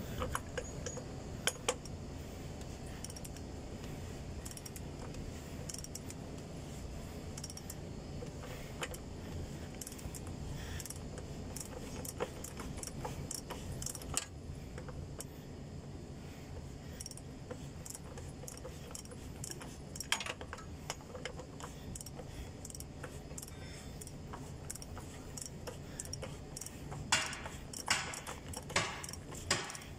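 Ratchet wrench and socket turning a truck's oil filter housing cap: scattered ratchet clicks and light metal clinks, with a few louder clicks near the end.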